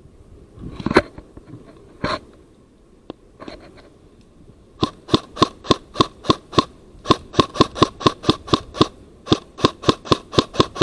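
Airsoft guns firing rapid strings of shots, about four to five a second with short breaks, starting about five seconds in. Before that there is quiet rustling and two louder knocks.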